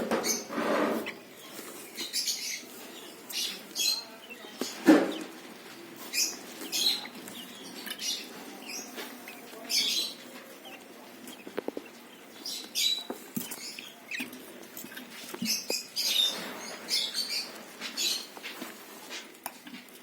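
Hand-fed bird chicks giving short, high, squeaky begging calls over and over, the sound of nestlings begging for food. There are a couple of soft knocks from handling near the start and about five seconds in.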